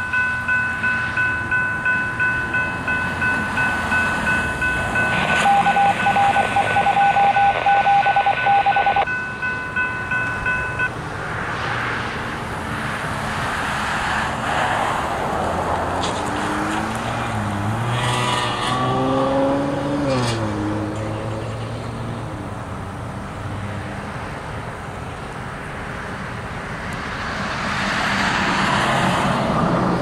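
Railroad grade-crossing warning bell ringing in even strokes about twice a second, then stopping about eleven seconds in. After that a road vehicle passes, its engine note rising and falling, and near the end the sound of the distant approaching train swells.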